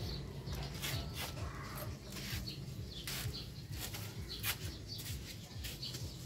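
Birds chirping in the background: short, high chirps repeating every second or so, over a low steady rumble.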